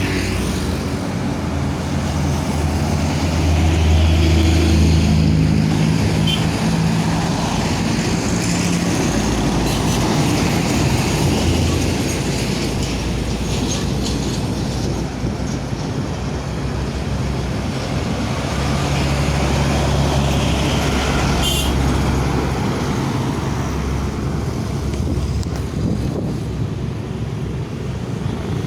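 Heavy road traffic with large vehicles' engines passing close by. A low engine hum is loudest about four seconds in, and another passes at around twenty seconds.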